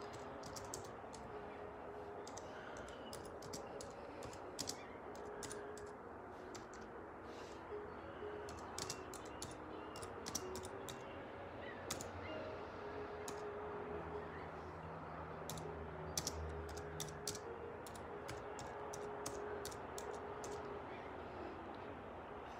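Typing on a computer keyboard to enter a chat message: irregular runs of quick key clicks, with faint music underneath.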